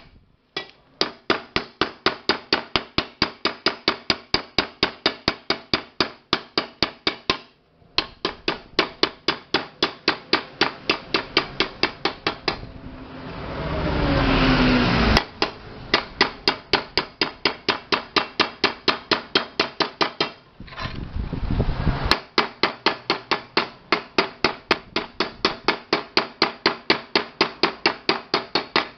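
Small hammer tapping rapidly and lightly on the rim of an aluminium pressure-cooker body, about four blows a second, reshaping the dented edge a little at a time. The tapping pauses twice for a longer scraping noise.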